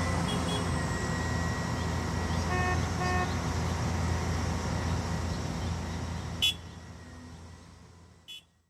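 Caterpillar 390F excavator's diesel engine running with a steady low hum. A few seconds in come two short beeps about half a second apart. About two-thirds of the way through there is a sharp click, and the sound then dies away, with a second faint click near the end.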